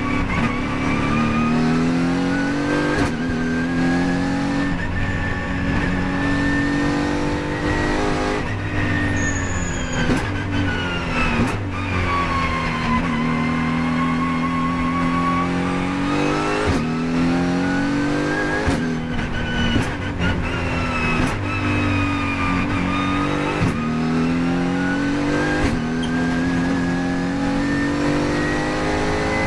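Mercedes-AMG GT4 race car's twin-turbo V8, heard from inside the cockpit, revving up and down repeatedly as the car accelerates and slows through a lap, with a whine that rises and falls with the revs. Sharp cracks cut in about ten times.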